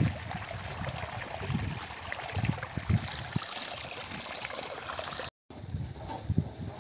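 Spring water running and trickling over stones and mud in a steady shallow rush, with a few dull low thumps. The sound drops out for a moment near the end.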